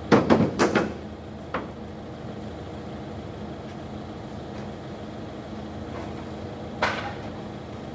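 A vehicle engine idling steadily, with a quick run of loud clattering knocks in the first second, a single knock about a second and a half in and another near the end.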